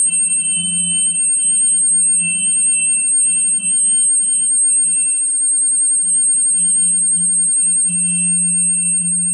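Steady high-pitched whine made of pure tones, with fainter wavering tones below it and a low hum that grows stronger about eight seconds in.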